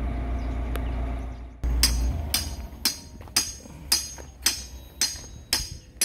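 A backhoe engine runs with a low steady rumble. About one and a half seconds in, it gives way abruptly to background music with a steady jingling, tambourine-like beat of about two strikes a second.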